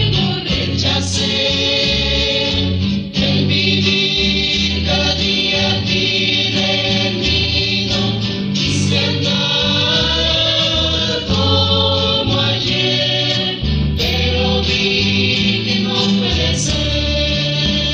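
Rondalla ensemble playing a Christian song: a group of voices singing together in harmony over guitar accompaniment, with a steady low bass line.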